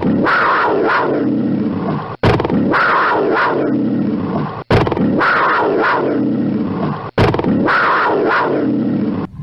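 Black panther calling, a short recording looped about every two and a half seconds with a brief cut between repeats. Each pass holds several strokes that fall and rise in pitch.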